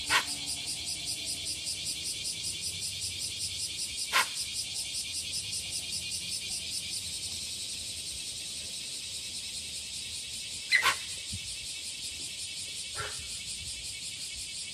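Short, sharp warning calls from a hoofed animal: one near the start, one about four seconds in, a quick double about eleven seconds in, and a fainter one shortly after. Behind them runs a steady, rapidly pulsing high drone.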